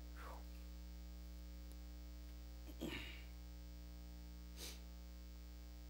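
Steady electrical mains hum from the church's microphone and sound system, with a few short faint noises from the person at the pulpit microphone: about half a second in, about three seconds in, and once more near the end.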